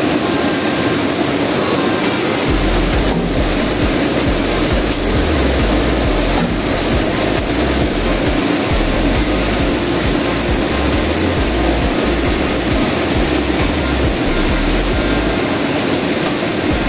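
Steady machine hum and hiss, with gusts of wind rumbling on the microphone from about two seconds in.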